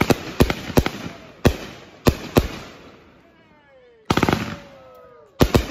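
Consumer aerial fireworks going off: a run of sharp bangs a third to half a second apart, then a quick crackling cluster of reports about four seconds in, and more bangs near the end. In the lulls between the bursts come a few short cries that fall in pitch.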